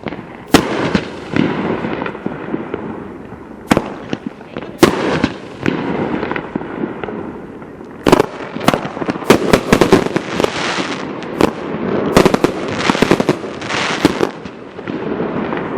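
A 500g consumer fireworks cake firing: sharp shot reports and aerial breaks, followed by dense crackling from glittering crackle stars. The reports are spaced a second or more apart at first, then the crackling comes thick and fast through the second half.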